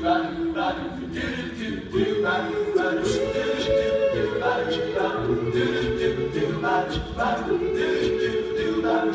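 Male a cappella group singing in close harmony into microphones, with held chords that change every couple of seconds.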